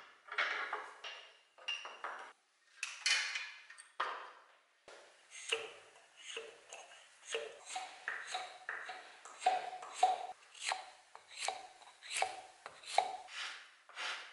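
Hand sanding of a small steel axe head clamped in a bench vise: a few irregular scrapes at first, then a steady run of short strokes, about one and a half a second, each with a faint metallic ring.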